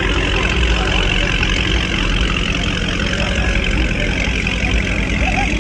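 A widebody Dodge Charger's V8 running with a deep, steady exhaust rumble as the car rolls slowly away at low speed, with no revving.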